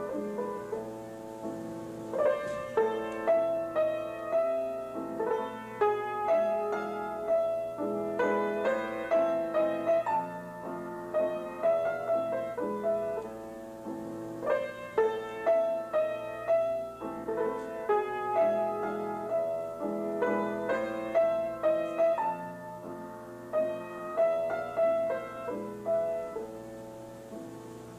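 Solo piano playing a classical piece, a run of struck notes in phrases that repeat, growing softer near the end. A faint steady hum lies underneath.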